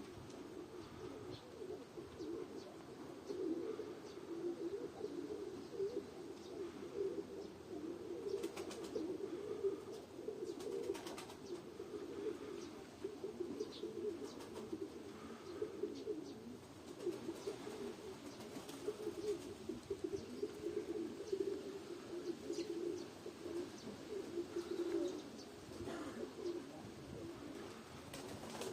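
Domestic pigeons cooing, many at once, in a steady overlapping chorus, with a few short clicks.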